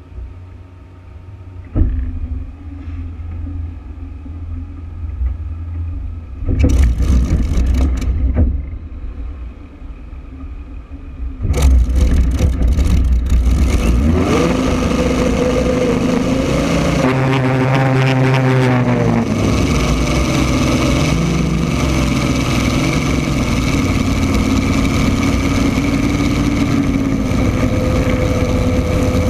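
Rolls-Royce Griffon V12 aircraft engine of a 1980 unlimited hydroplane heard onboard, running low at first with a loud burst of throttle at about seven seconds. From about twelve seconds it is opened up as the boat gets under way: the engine pitch rises and wavers, then holds as the engine runs hard at speed.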